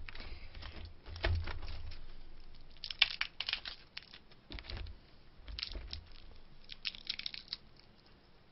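Cooked snow crab being broken apart and picked by hand: crunching, crackling and tearing of the shell in irregular clusters of sharp clicks.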